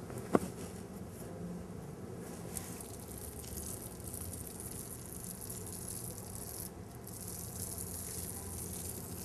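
Small 4-inch paint roller rolling wet metallic paint along a wall, a steady hiss. A sharp click about half a second in.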